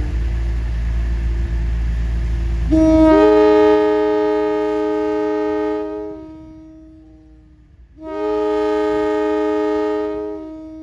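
Multi-chime train air horn blowing long blasts. It starts on one held note over a low rumble, swells into a full chord about three seconds in that fades away around seven seconds, then sounds the chord again about eight seconds in.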